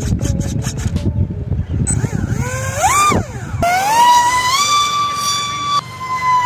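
Small brushless motor and propeller of a cardboard RC plane whining as the throttle is worked: after a rough noisy start, the pitch rises to a peak, falls away, then climbs again and holds steady at a high whine.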